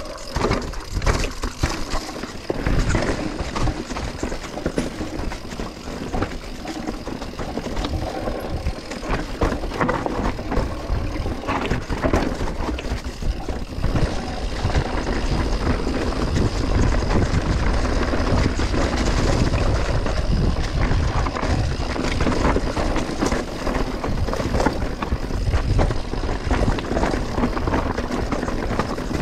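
Mountain bike riding down a dirt bike-park trail: tyre noise and a constant rattle of knocks from the bike over the bumps, with wind rumbling on the microphone.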